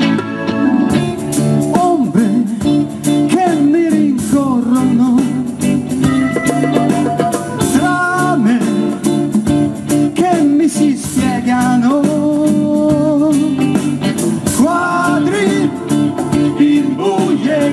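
Live band playing an instrumental passage: guitar, keyboard and congas over sustained chords, with a lead melody that bends and wavers in pitch.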